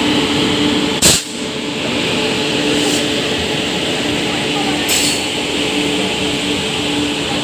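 Red LHB coaches of an express train passing at speed: a steady rumble of wheels on rail with a sharp clack about a second in and fainter clicks near three and five seconds in, typical of wheels crossing rail joints.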